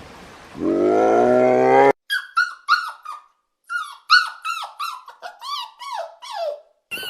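Animal calls: one rising whine, then after a sudden cut a quick run of short, high squeaks, each falling in pitch.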